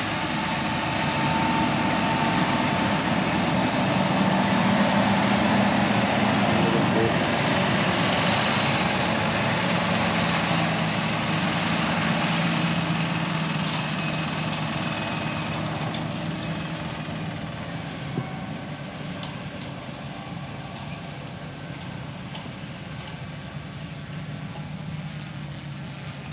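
Self-driving tractor's diesel engine running as it pulls a trailed sprayer past through the crop: a steady hum that grows louder as it comes by, then fades as it moves away.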